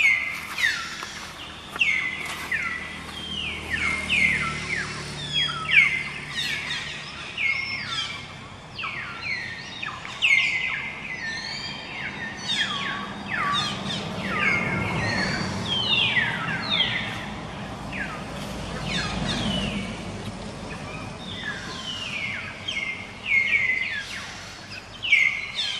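Birds chirping: a dense, continuous chorus of short calls, each sliding downward in pitch. A low rumble rises and fades in the middle.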